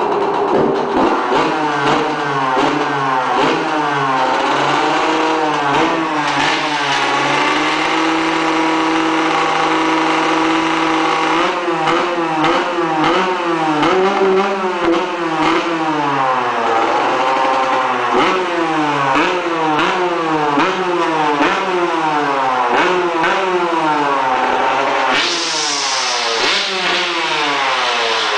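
Yamaha YZ125 two-stroke single-cylinder motocross engine revved up and down over and over. Its pitch is held steady for a few seconds about a quarter of the way in.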